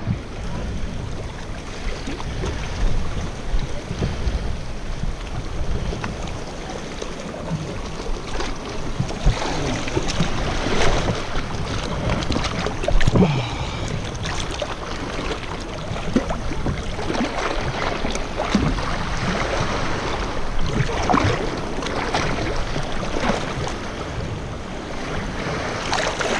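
Seawater splashing and sloshing right around a swimmer in fins in shallow sea, with wind rumbling on the microphone. The splashing gets busier and more irregular about a third of the way in.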